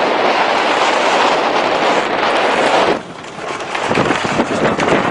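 Strong wind buffeting the microphone aboard a sailing yacht under way: a loud rush that drops off sharply about three seconds in, then returns as uneven gusts.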